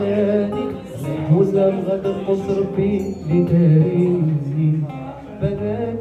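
A man singing live to his own classical acoustic guitar, strummed and plucked with a steady bass line under the voice.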